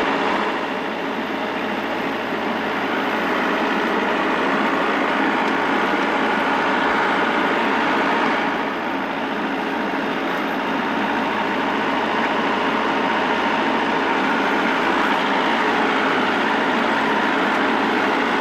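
Farm tractor engine running steadily under moderate load, heard close from the tractor, with its level easing off slightly about one second in and again about nine seconds in.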